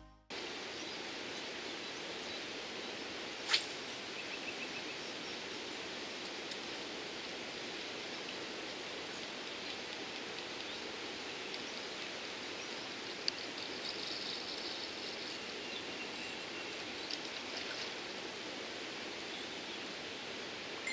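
Steady rushing of river water at a weir, an even outdoor wash of sound with one sharp click about three and a half seconds in and a smaller one later.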